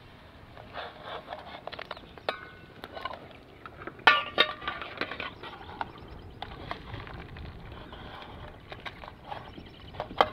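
Metal cookware clinking and clanking: a perforated metal strainer knocking against an aluminium pot and a steel bowl while boiled potatoes are scooped out. Scattered light clinks, with the loudest clanks about four seconds in and another just before the end.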